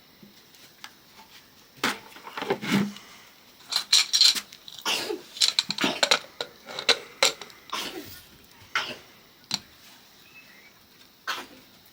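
Irregular clatter of kitchen utensils and objects being handled, a dense run of sharp knocks and clinks through the middle that thins out near the end.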